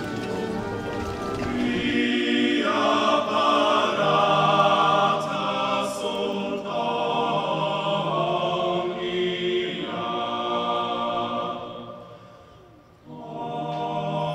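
A choir singing slow, held chords. The singing fades out about twelve seconds in and starts again about a second later.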